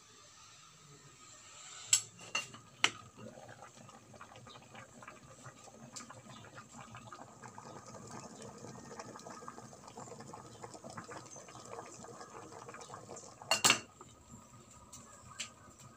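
Aluminium pot lid clanking against the pot rim three times about two to three seconds in, then glutinous rice boiling and bubbling in the open pot, and the lid clanking loudly again near the end.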